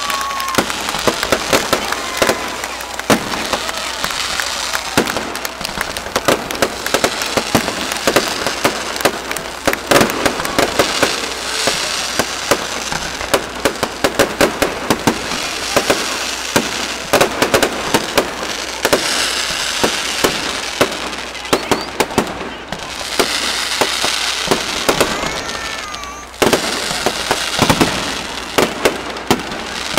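Fireworks display: rapid, irregular bangs and crackling over a continuous hiss of burning gerbs and rockets, briefly easing about 26 seconds in before bursting loud again.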